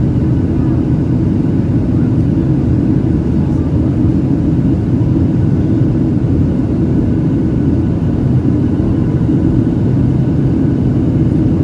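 Steady cabin noise of a Boeing 737-800 climbing out after takeoff, heard from a window seat over the wing: an even, low rumble of its CFM56-7B engines and rushing air, with a faint steady whine above it.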